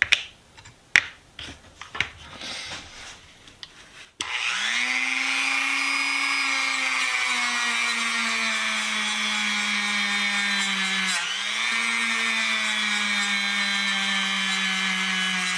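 Handling clicks, then a small power tool's motor switched on about four seconds in, spinning up quickly to a steady whine as it buffs brass; its pitch dips briefly under load about eleven seconds in.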